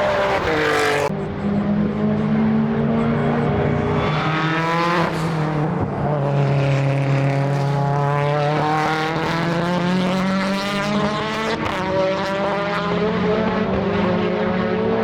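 Time attack race car engine at high revs, its pitch climbing under acceleration and dropping sharply at gear changes, several times over. Short sharp cracks come through in the middle.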